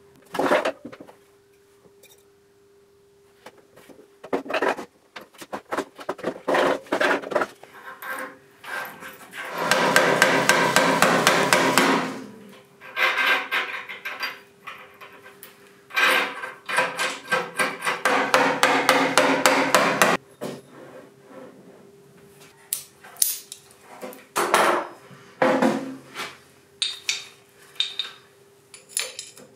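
Hammer tapping on metal while the new steering-head bearing is fitted to a Vespa PK50 XL's steering column: scattered single knocks, then two long runs of rapid, ringing taps, the first about ten seconds in and the second about sixteen seconds in.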